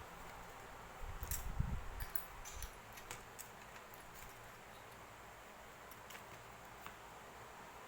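Small hard objects being handled on a work surface: a cluster of low knocks and bumps with a few sharp clicks between about one and three seconds in, then only scattered faint ticks.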